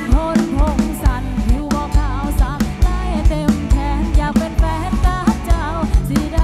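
Live pop band playing: a woman singing the lead into a microphone over drum kit and keyboard, with a steady beat.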